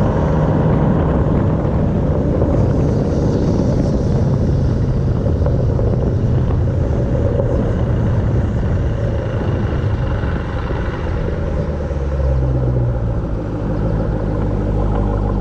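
2018 Jeep Grand Cherokee Trackhawk's supercharged 6.2-litre V8 running at steady revs with a deep rumble. Its pitch drops to a lower, steady note about thirteen seconds in.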